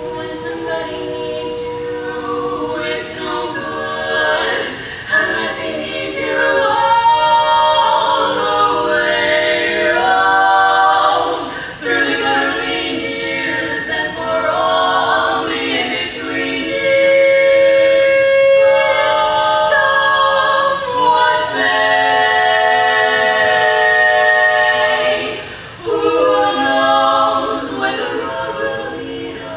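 Women's barbershop quartet singing a cappella in close four-part harmony, held chords in phrases with short breaks between them.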